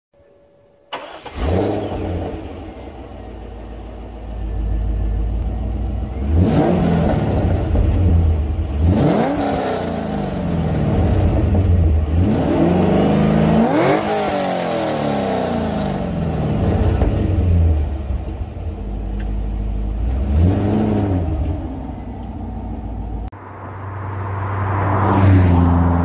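2001 Corvette Z06's LS6 V8 with long-tube headers, test pipes in place of the catalytic converters and the factory titanium axle-back, starting about a second in, then idling and revved several times, the biggest rev near the middle. Near the end it changes to the car driving past in sixth gear at about 50 mph, getting louder to a peak just before the end.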